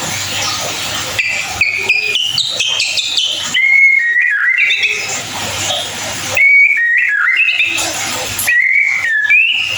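White-rumped shama singing: phrases of clear whistled notes that step and slide up and down in pitch, over a steady background hiss.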